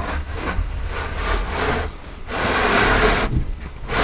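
Wooden shelf panel sliding down the grooves of a changing-table frame, a scraping rub that comes in stretches, loudest about two and a half to three seconds in.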